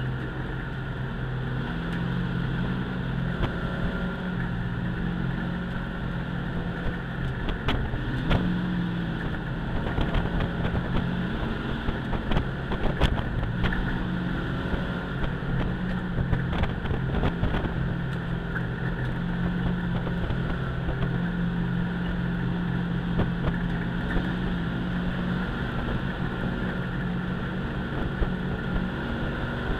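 Race truck's engine heard from inside the cockpit at racing speed, its pitch stepping up and down as it accelerates and slows for corners. A few sharp knocks and rattles come through near the middle.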